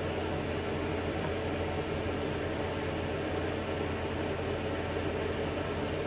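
Steady fan-type noise with a low hum, even and unchanging, with no knocks or clicks standing out.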